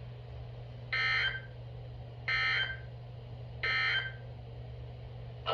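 Emergency Alert System end-of-message code: three short, identical, buzzy bursts of digital data about a second and a half apart, marking the end of the warning.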